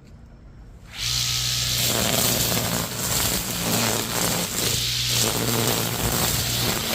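Homemade battery-powered grass cutter: its electric motor and blade come up to full speed about a second in, running with a steady hum and a broad hiss that rises and falls as it cuts.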